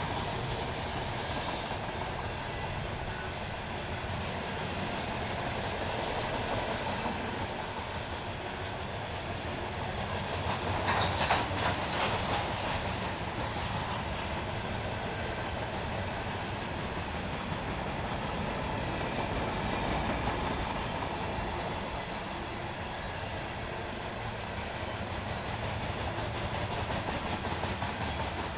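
Norfolk Southern freight train cars rolling steadily past on the rails with a continuous clickety-clack, briefly louder with a run of clanks about eleven seconds in.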